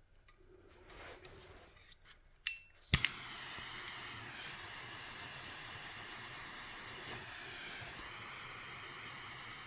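Butane micro torch clicked alight about three seconds in, then its flame hissing steadily. Before that there are a few small handling clicks.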